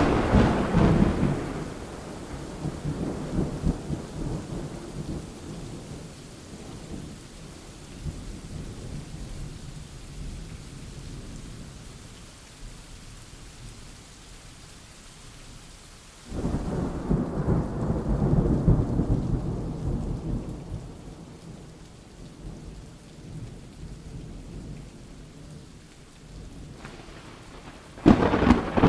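Thunderstorm: thunder breaking with long rolling rumbles over steady rain. One peal comes right at the start and another about halfway through, each dying away over several seconds, and a third breaks just before the end.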